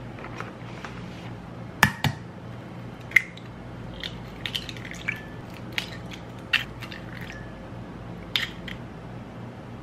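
Eggs cracked one after another against a ceramic mug and broken open into it: a series of short, sharp taps and shell cracks, the loudest about two and three seconds in.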